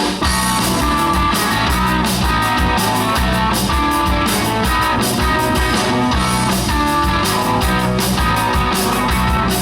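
Live rock band playing a song's instrumental intro: electric guitar and drum kit at a steady beat.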